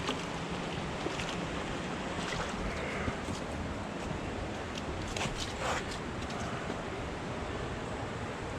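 Steady rush of flowing river water, with a few faint clicks about halfway through.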